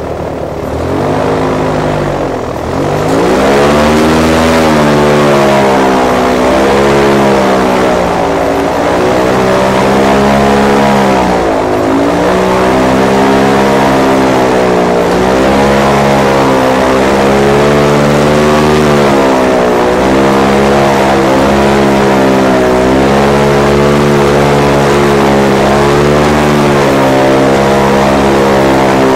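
Airboat engine and propeller running loud, the pitch rising and falling again and again as the throttle is worked; it picks up about two to three seconds in. The boat is being driven across dry marsh ground rather than water.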